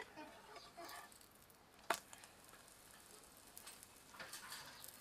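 A metal spatula clicks against a nonstick frying pan as a flatbread is turned, one sharp click about two seconds in after a few lighter taps. A faint frying hiss comes from the pan near the end.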